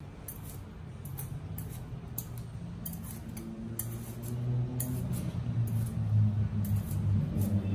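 A knife shaving the thick rind off a santol fruit in short repeated strokes, a little more than one a second. A low hum of steady tones grows louder under them in the second half.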